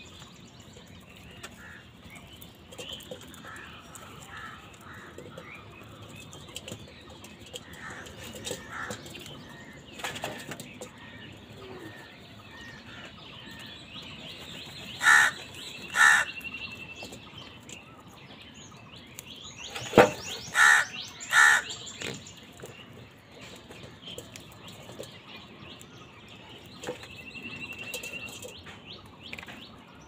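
A flock of house crows squabbling over food, with scattered soft calls and wing flaps, then five loud harsh caws: two about halfway through and three in quick succession a few seconds later.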